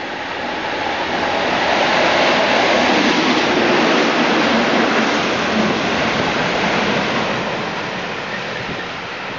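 Pair of Class 37 diesel locomotives passing close at low speed with a nuclear flask wagon. Their English Electric V12 engines are running without thrash, with a steady rushing rumble. It is loudest from about two to seven seconds in and dies away as the flask wagon rolls off.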